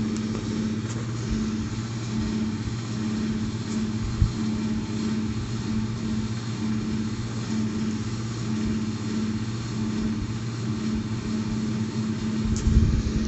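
A kitten purring: a steady low rumble that swells and eases in a regular rhythm with each breath. There is one brief tap about four seconds in.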